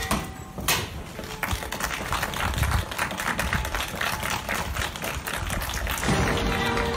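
A fast, dense run of clicking taps, like typing, going on for several seconds. Music with held notes comes in about six seconds in.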